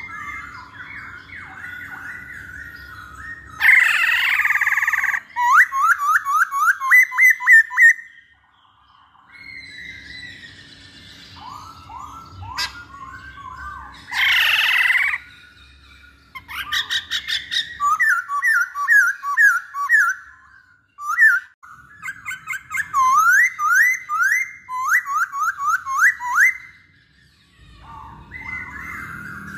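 Masked laughingthrush (poksay hongkong) singing: runs of quick, rising whistled notes, broken twice by a loud, harsh squawk, about four seconds in and again around fourteen seconds.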